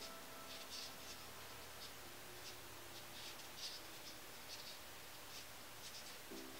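Faint, irregular scratchy ticks, two or three a second, of a metal crochet hook pulling nylon cord through aluminum pop tabs as single crochet stitches are worked.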